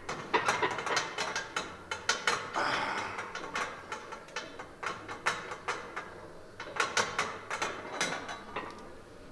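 Irregular metallic clicks and clanks of gym weights and barbell equipment, with a brief rushing noise about two and a half seconds in.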